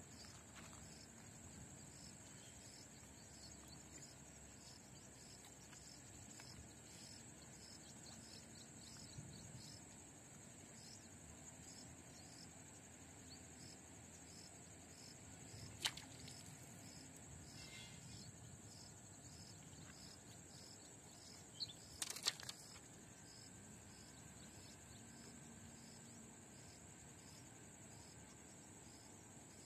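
Insects chirring steadily in a high, thin tone, with a fainter chirp repeating over and over beside it. A sharp click cuts in about halfway through, and a quick cluster of clicks a few seconds later.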